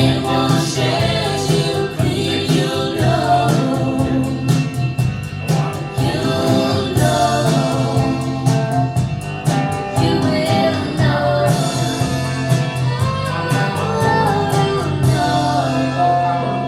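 A song with a singing voice and a steady percussion beat, played back over hi-fi loudspeakers in a demo room.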